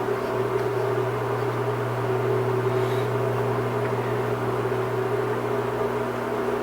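A steady, unchanging drone: a low hum with a few fainter steady tones above it.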